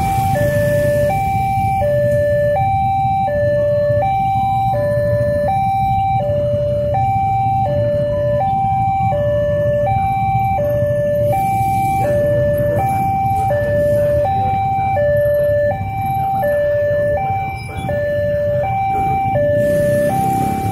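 Railway level-crossing warning alarm from the crossing's loudspeaker: an electronic two-tone signal alternating high and low, about one pair a second, warning that a train is due and the barrier is down. Underneath is a steady low rumble of waiting traffic.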